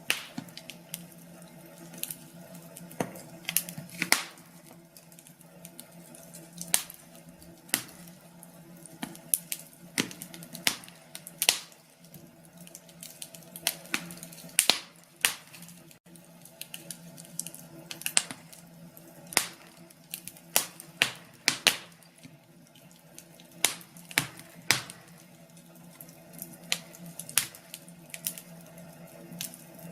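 Wood fire crackling in a fireplace, with irregular sharp pops and snaps, sometimes several in quick succession, over a faint steady low hum.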